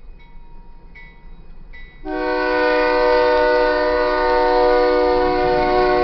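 A grade-crossing bell dings steadily, and about two seconds in the air horn of a Union Pacific GE AC44CW locomotive sounds one long, loud blast, a chord of several steady tones held to the end.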